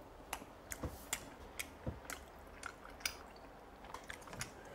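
Close-up chewing of chewy rice cakes (tteokbokki) in spicy sauce: faint wet mouth sounds with a dozen or so short, sharp smacks and clicks at uneven intervals.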